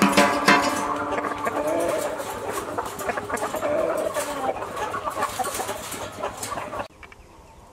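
Caged roosters clucking and calling, with scattered clicks, stopping abruptly near the end.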